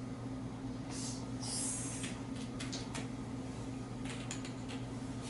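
Quiet room tone with a steady low electrical hum, broken by a soft rustle and a few faint light clicks.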